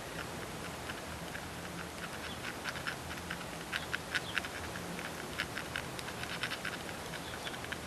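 Faint, irregular light clicks and scratches of a thin nail-art tool's tip stirring nail polish on the plastic face of a CD, sparse at first and quicker in the second half.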